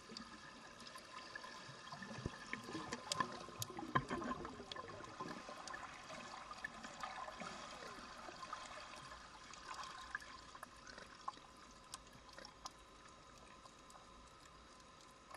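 Underwater sound picked up by a camera below the surface: bubbling, crackling water noise with sharp little clicks, swelling in the first half and easing off toward the end, over a faint steady hum.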